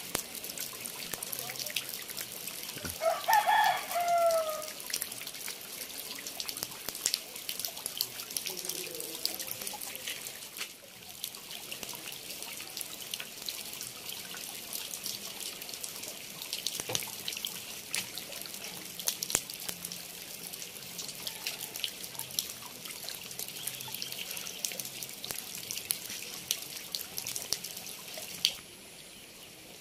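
Steady rain falling on a muddy dirt road and its puddles: an even hiss dotted with drip ticks. A single drawn-out call sounds about three seconds in.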